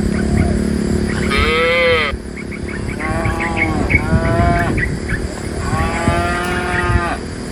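Cattle mooing: four calls, the first and loudest rising and falling about a second in, two shorter ones in the middle and a longer one near the end. Short high chirps repeat throughout.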